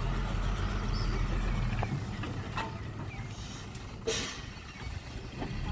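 Heavy truck or machine engine running with a low steady hum that drops off about two seconds in, and a short sharp hiss about four seconds in.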